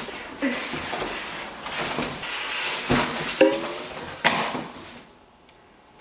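A new upright vacuum cleaner and its plastic parts being lifted out of a cardboard box: cardboard scraping and rustling, with a few knocks of plastic parts, dying down near the end.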